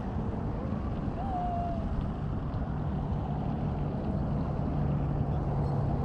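Steady low rumble of road traffic, with an engine hum coming in about halfway through. A short, faint whistle-like sound comes about a second in.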